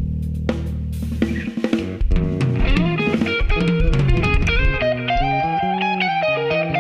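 Live band playing during a sound check: electric guitar over bass guitar and drum kit. A held low chord rings first, then drums come in with a picked guitar melody from about two seconds in.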